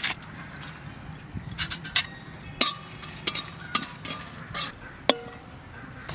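Metal spatula knocking and scraping against a dry metal wok while dried red chillies and bay leaves are dry-roasted. There are about ten irregular clinks, some with a short metallic ring after them.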